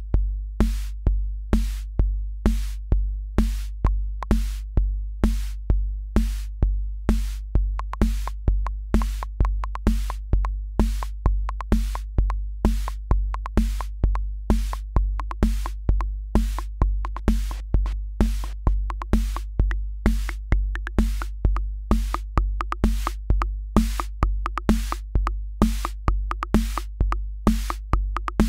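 Akai Rhythm Wolf analog drum machine playing a steady looping beat: a booming kick drum on an even pulse with crisp hi-hat ticks. A higher pitched part joins about eight seconds in.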